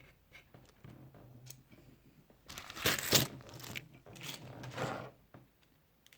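Crinkling and rustling of handled packaging in a few bursts, loudest about three seconds in, as parts are searched through.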